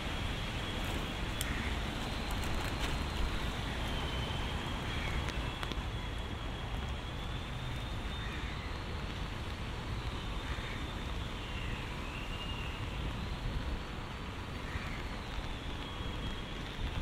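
Steady city street ambience on a wet day: a low traffic rumble under an even hiss.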